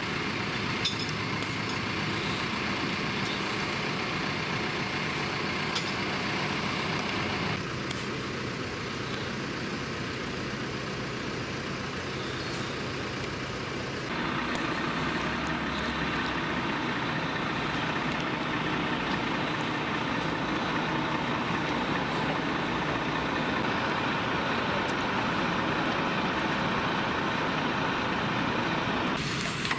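Idling engines of fire and rescue vehicles: a steady hum with a hiss over it. The sound changes abruptly twice, about 8 and 14 seconds in.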